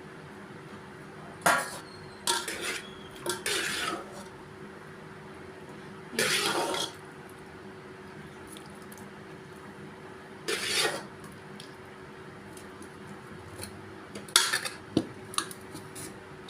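Metal spoon scraping and clinking against a cooking pan in about six short strokes, with a few sharper clinks near the end. A faint steady hum runs underneath.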